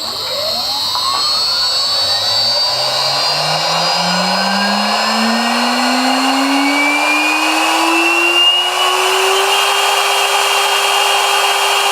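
Air-cooled Chinese CNC router spindle, about 4 horsepower, spinning up under its VFD. Its whine climbs slowly and smoothly in pitch for about nine and a half seconds, then holds steady at full speed.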